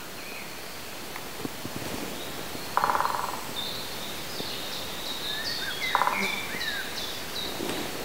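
Woodland ambience with songbirds: a run of short high notes repeats through the middle, with brief chirps, and two short rattling bursts come about three and six seconds in.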